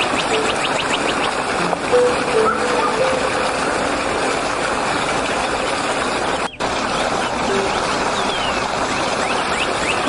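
Fast-flowing stream rushing over rocks, a steady wash of water that cuts out for an instant a little past halfway. A few soft held tones sound around two seconds in, and thin high bird chirps come in near the end.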